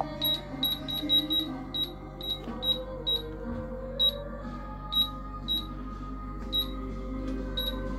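Handheld UHF RFID reader beeping as it reads tags during a bulk scan: short high beeps at irregular intervals, a dozen or so, coming quickly in the first second and a half and then more spaced out.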